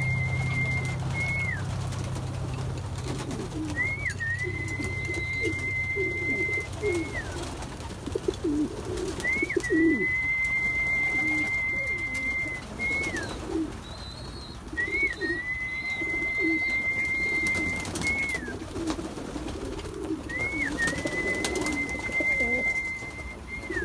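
Racing pigeons cooing in a loft, many low coos overlapping throughout. Over them a steady high whistle-like tone, about three seconds long with a short glide at each end, comes back about every five seconds.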